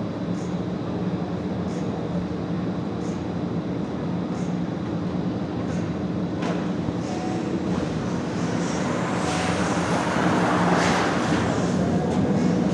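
A vehicle running: a steady low hum with faint, regular ticks about every second and a half, and a rushing noise that builds louder over the second half.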